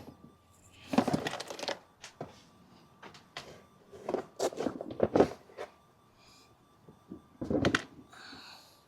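Hard plastic planter parts clattering and knocking as they are handled and fitted together, in three bursts: about a second in, around four to five seconds in, and near the end.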